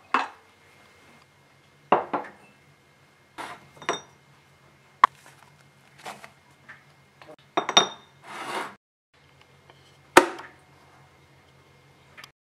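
Ceramic mugs knocking and clinking against a shelf and a kitchen worktop, a series of separate sharp knocks a second or two apart, with a loud sharp click about ten seconds in.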